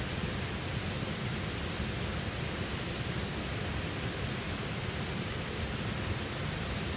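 Steady rushing of falling water, an even wash of noise with no distinct events.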